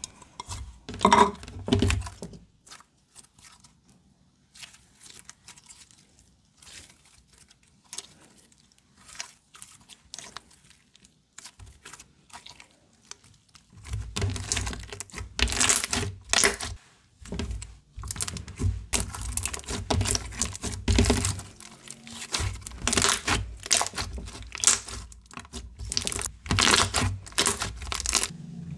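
Hands squishing, stretching and folding a thick slime, giving sticky crackles, clicks and small pops. The sounds are sparse and soft for much of the first half, then come thick and louder from about halfway in.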